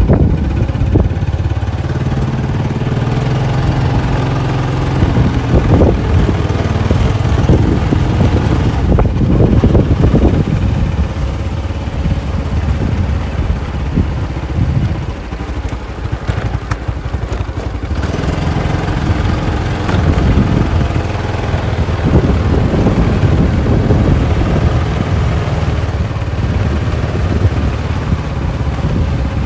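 Small Honda motorbike engine running as it rides along at a steady, unhurried pace, with wind buffeting the microphone.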